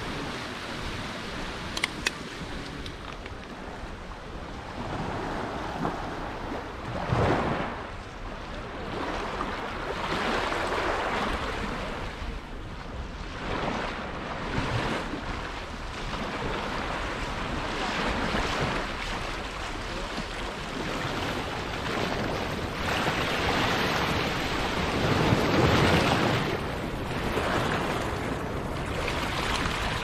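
Small sea waves breaking and washing up a sandy beach, the wash swelling and fading every few seconds with the biggest surge near the end, and some wind on the microphone.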